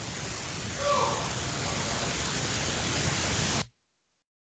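Field recording played back: a heavy, steady hiss with one short voice-like call about a second in, which the recordist presents as a second, feeble-sounding voice after his own. The hiss cuts off suddenly near the end.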